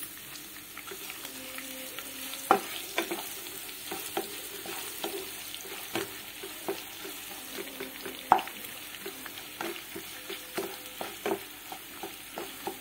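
Sliced onions frying in hot oil in a kadhai, sizzling steadily while they are stirred, with irregular knocks and scrapes of the spatula against the pan. Two knocks stand out, one about two and a half seconds in and one a little past eight seconds.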